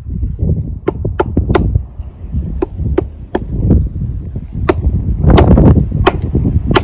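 Kharkiv Forge Russian-style axe splitting dry kindling on a wooden chopping block: a run of about a dozen sharp wooden chops and knocks at uneven intervals.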